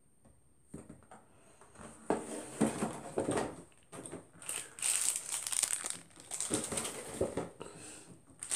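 Crinkling and rustling of snack packaging being handled: a cardboard cereal box and other wrapped snacks. It starts about a second in and turns busier and more crackly about halfway through.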